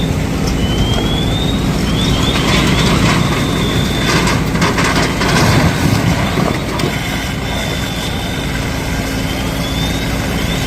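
Motor vehicle engines running steadily, with a constant low hum under dense noise and a few short high chirps.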